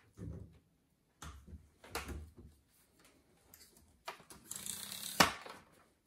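Scattered knocks and handling clatter, then a rushing scrape lasting about a second that ends in a sharp click, the loudest sound, just after five seconds in.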